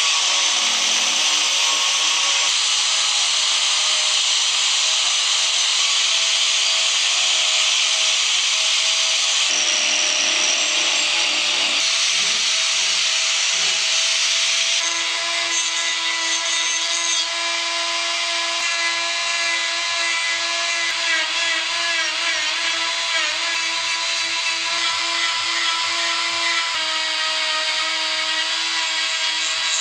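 Angle grinder with a sanding disc grinding walnut to shape a spoon. About halfway through, the sound changes to the steady whine of a flex-shaft rotary tool carving the wood.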